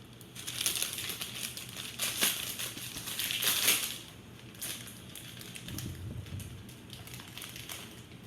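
Foil booster-pack wrappers crinkling and rustling as they are handled, in several bursts over the first four seconds, then fainter rustling with a few small clicks.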